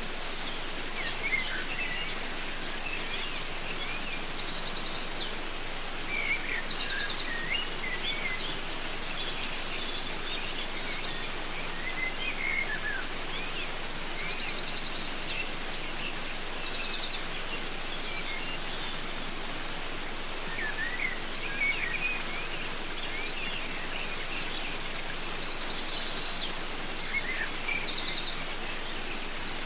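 Steady rush of a waterfall with several birds calling over it: short chirps and rapid high trills. The same run of calls comes back about every ten seconds.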